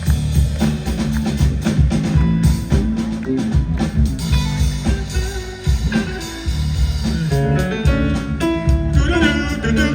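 Live amplified instrumental jam: guitar playing melodic lines over a drum kit, with a heavy bass line underneath.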